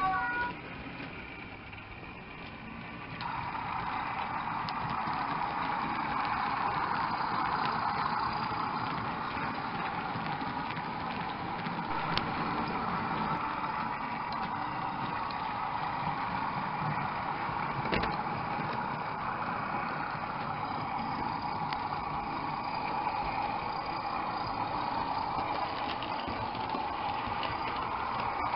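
Recorded Class 31 diesel locomotive engine sound played through the small speaker of a model-railway sound capsule. It steps up in level about three seconds in and then runs steadily, with a couple of sharp clicks. The tail of a two-note horn sounds right at the start.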